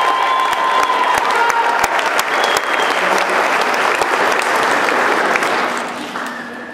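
Audience applauding and cheering at the end of a song, dying away near the end. A held note from the song's close fades out in the first couple of seconds.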